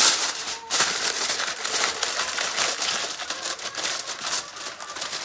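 Aluminium foil crinkling and rustling as it is pulled and pressed down to cover a dish, with a loud crackle right at the start and then steady, fast crinkling.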